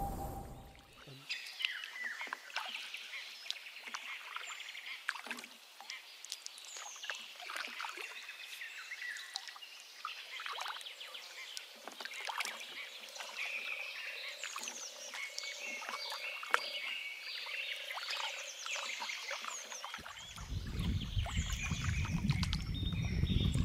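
A chorus of wild birds and frogs calling, with many short overlapping chirps and falling whistles. About twenty seconds in, a low rumbling noise comes in beneath them.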